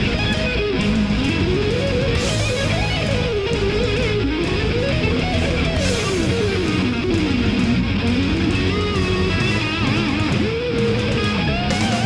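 Background instrumental rock music, with a guitar playing a wandering melody over a steady accompaniment.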